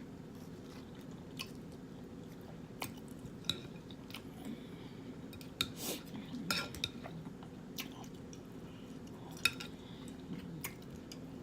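Close-up eating sounds of someone working through a saucy seafood boil: scattered wet smacks and sharp clicks from chewing and handling the food, over a faint steady low hum.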